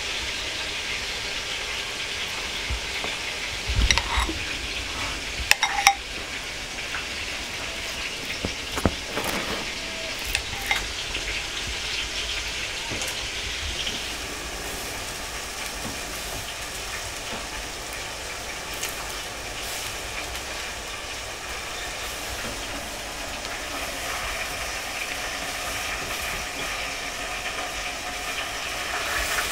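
A steady hiss with a few light knocks and clicks of a spoon, a ceramic bowl and food being set down on a wooden cutting board.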